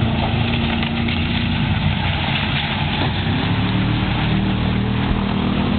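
Race car engines running on the track, a loud steady drone whose pitch shifts about halfway through as the engines change speed.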